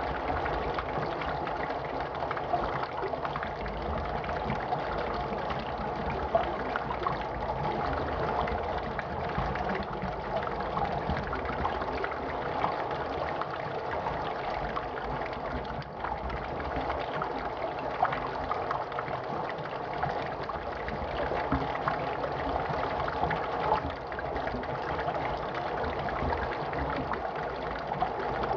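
A steady rushing, watery noise with faint scattered ticks throughout.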